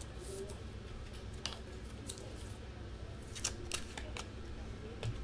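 Faint clicks and light scrapes of trading cards being handled and slid against one another, over a low steady hum.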